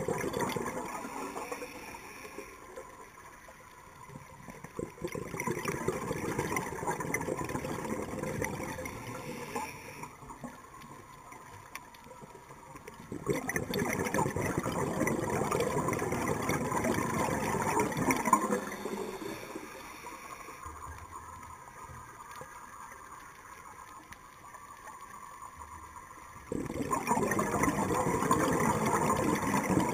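A scuba diver's breathing underwater through a regulator: four long stretches of exhaled bubbles gurgling and rushing. Quieter gaps with a faint hiss of inhaling lie between them.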